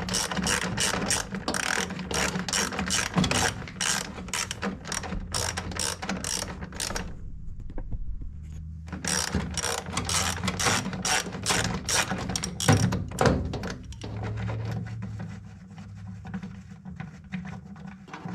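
Hand socket ratchet clicking rapidly as it backs out the bolts of a furnace inducer motor, pausing for about two seconds midway and turning quieter and sparser near the end.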